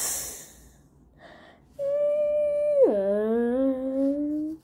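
A child's voice imitating a metro train: a short breathy hiss at the start, then a long hummed tone that holds high, drops steeply about three seconds in, and slowly rises again before cutting off.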